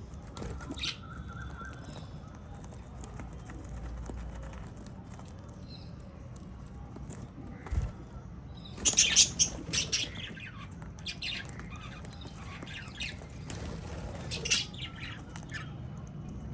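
Pet parrots giving harsh squawking calls in short bursts, the loudest cluster about halfway through and another near the end, with some chirps between. A single dull thump comes just before the loudest squawks.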